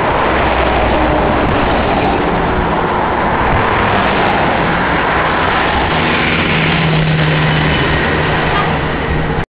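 Heavy diesel vehicles driving past close by one after another: Scania trucks in convoy with engine drone and tyre noise on the road, then a farm tractor towing a slurry tanker with a steady engine hum. The sound cuts off suddenly near the end.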